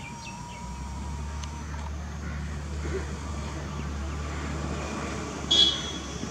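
Volantex BF-109 RC warbird's electric motor and propeller, a steady drone from the plane in flight. About five and a half seconds in, a brief high-pitched chirp is the loudest sound.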